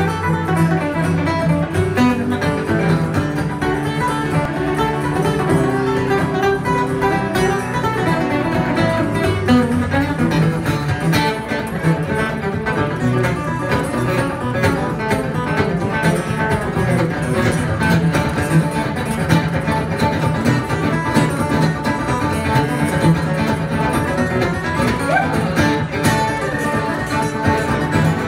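Two steel-string acoustic guitars playing an instrumental duet: picked melody notes running over a steady strummed rhythm.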